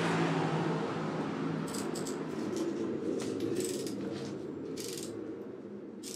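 Socket ratchet clicking in short bursts on its return strokes as a 7 mm hex bit undoes a brake caliper guide-pin bolt. The bursts start about a second and a half in and come four times, over a steady low hum.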